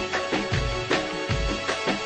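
Instrumental passage of a live Sudanese-style party band: held electronic keyboard notes over a steady beat of deep drum hits and sharper percussion strikes, with no singing.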